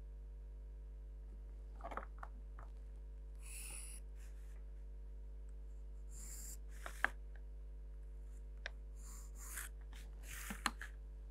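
Graphite pencil scratching across drawing paper in three short spells of strokes, with a few light clicks as the plastic set square and pencil touch the drawing board, over a steady low electrical hum.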